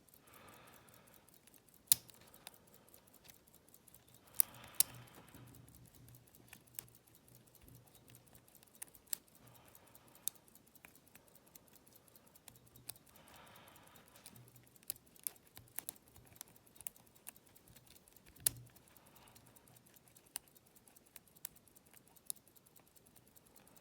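Lock pick and tension wrench working inside an old all-brass Yale padlock during single pin picking: faint metallic clicks and scrapes against the pins, with a few sharper clicks.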